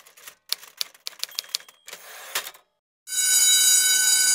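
Typewriter keys clacking in an uneven run, then a short rasping sweep with a final strike about two seconds in. About three seconds in, a loud steady ringing tone starts and holds.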